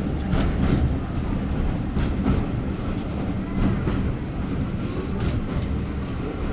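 A passenger train running on the rails: a steady low rumble with scattered wheel clicks and knocks.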